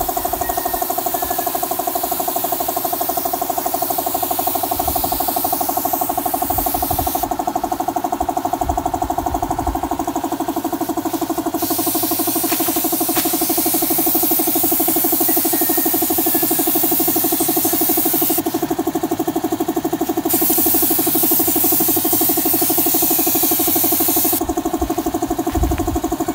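Air compressor running steadily under the hiss of a spray gun spraying a finish coat. The hiss cuts off three times for a few seconds as the trigger is released, while the compressor keeps running.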